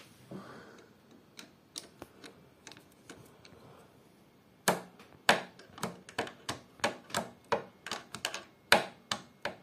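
Metal parts of an embroidery machine's thread-catcher mechanism clicking as they are worked back and forth by hand, checking for play. The clicks are faint and scattered at first, then from about halfway turn sharp and irregular, roughly two a second.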